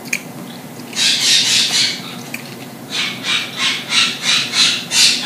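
Birds screaming: a quick burst of shrill, rapid calls about a second in, then a run of about eight shrill calls at roughly three a second near the end.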